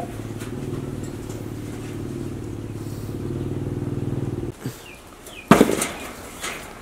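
A motor runs with a steady low drone and a fine regular pulsing, then cuts off about four and a half seconds in. About a second later there is a loud, short rustling crackle.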